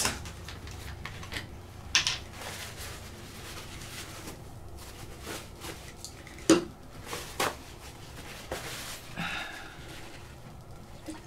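Quiet handling sounds of a bottle of rubbing alcohol being uncapped and handled: a few sharp clicks and knocks, then a brief soft rustle as a paper towel is wetted with it.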